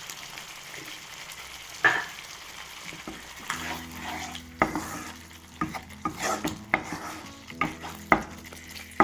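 Thick spinach (palak) gravy sizzling in a pan while a kitchen utensil stirs it. The steady sizzle carries on throughout. There is a single clink about two seconds in, then from about three and a half seconds a run of scrapes and clinks against the pan.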